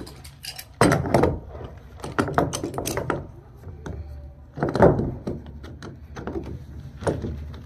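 Metal pipe wrench clicking and knocking against a PVC tank nipple fitting and the plastic water tank as the wrench is set on and the fitting is turned: a string of sharp knocks and clicks, loudest about a second in and again about five seconds in.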